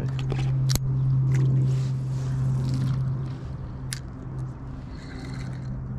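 Electric trolling motor of an Old Town Autopilot 136 kayak humming steadily as it holds position on spot lock, over light splashing and lapping of water. Two sharp clicks come through, about a second in and near four seconds.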